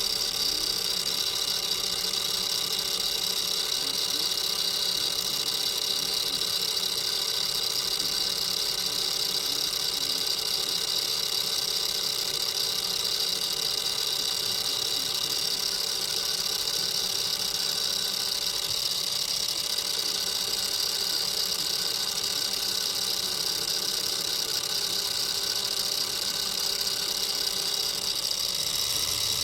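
Milling machine running steadily: a constant machine hum with several unchanging tones and a strong high hiss.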